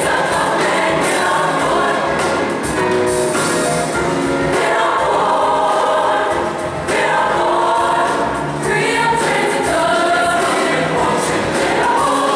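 Large youth choir singing, many voices together in several parts, in a live performance.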